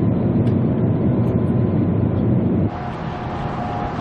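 Steady rushing noise of an Airbus A380 in flight on approach, heard from inside the aircraft. About two-thirds of the way through it cuts abruptly to a quieter recording with a steady high whine.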